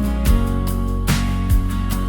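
Background music: strummed acoustic guitar chords at a steady pace, several strokes a second.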